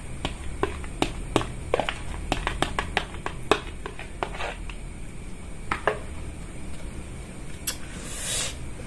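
Plastic spoon scraping and tapping inside a plastic bowl as sauced instant noodles are emptied out of it, a quick run of clicks and knocks. A brief rustle follows near the end.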